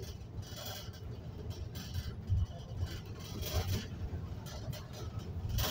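Moving bus heard from inside the passenger cabin: a steady low engine and road rumble.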